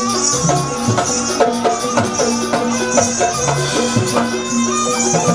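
Jaranan dance music from a traditional Javanese percussion ensemble: held ringing tones over regular drum strokes, about two a second.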